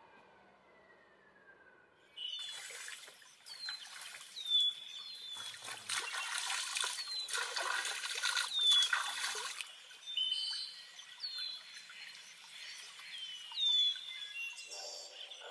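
Stream water trickling, with a small bird repeating a short high chirp about once a second. About six seconds in, water splashes loudly for a few seconds as it is scooped and poured over a person's head and runs off onto the ground. The first two seconds are quiet.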